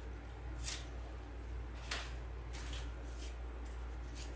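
Short soft rustles of an artificial silk berry pick being handled in the hands, two clearer ones about a second apart near the start and fainter ones after, over a steady low hum.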